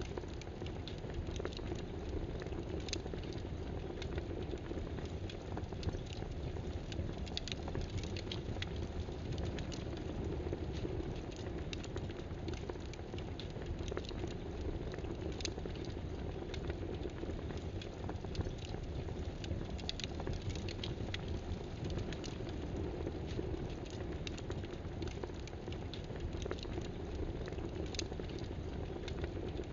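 Computer keyboard typing: scattered, irregular key clicks over a steady background hiss.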